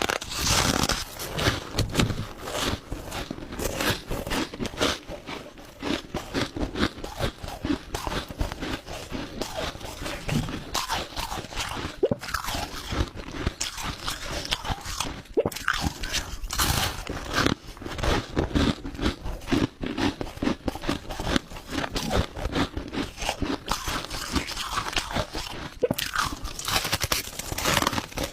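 Crushed ice being bitten and chewed close to the microphone: a dense, continuous run of sharp crunches.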